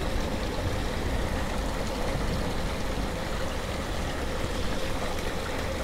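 Steady rushing noise of water running in a city drain, over a low rumble and a faint steady hum.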